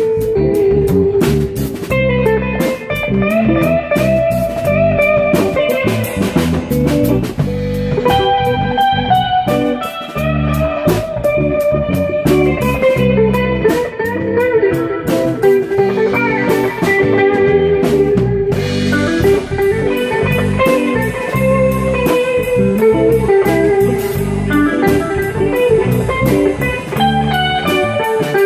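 Live band playing, with electric guitars over a drum kit; a guitar line of held and bending notes runs over the beat.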